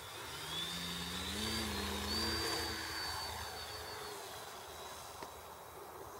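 Flyzone Beaver RC model plane's electric motor and propeller spooling up for takeoff. Its whine rises in pitch over the first two seconds and is loudest about two seconds in, then fades as the plane climbs away.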